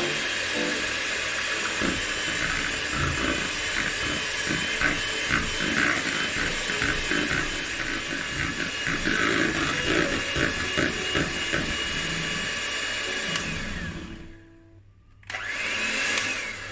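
Electric hand mixer running steadily, its beaters churning a thick creamed butter, sugar and egg batter in a plastic bowl while it is beaten until smooth. About fourteen seconds in it drops away for a second, then runs loudly again for a second or so near the end.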